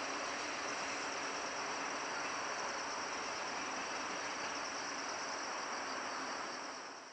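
Steady chorus of summer insects, a dense even buzz with high sustained whines, fading out at the very end.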